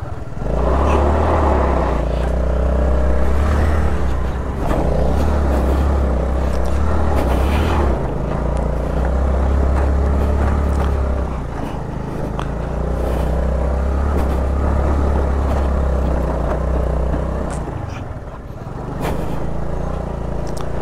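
Honda Activa scooter's single-cylinder engine running under load up a steep, rough dirt track, with scraping as the low scooter's underside catches on the ground. The engine eases off briefly near the end.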